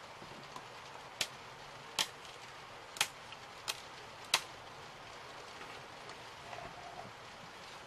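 Small laser-cut 3 mm MDF parts being handled: five sharp, separate clicks and taps over the first four and a half seconds, as pieces are taken from the cut sheet and set on the table, then quieter handling.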